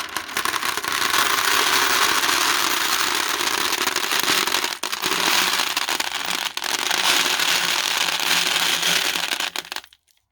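A mass of glass marbles clattering together in a tin: a dense, continuous rattle of many small clicks that stops abruptly near the end.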